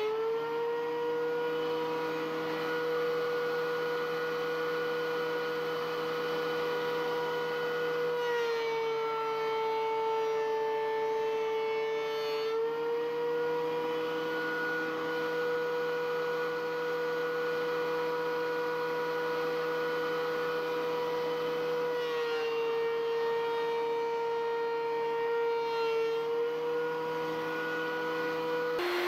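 A DeWalt benchtop thickness planer running with a steady high whine. Twice, its pitch sags for a few seconds under load as an end-grain cutting board passes through the cutterhead, then it comes back up to speed.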